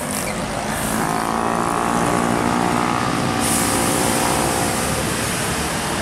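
Engine of a large tour coach running as it drives slowly past at close range around a sharp bend, with a steady whine in the middle of the pass; a steady hiss joins about halfway through.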